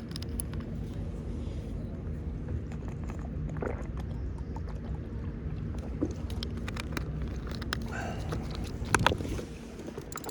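Steady low rumble of wind and water around a kayak, with scattered light clicks and knocks and one louder knock about nine seconds in.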